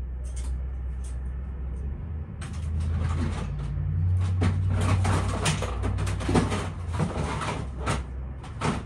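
Someone rummaging through belongings: many short knocks and clatters of objects being moved and shuffled, beginning about two seconds in, over a steady low hum.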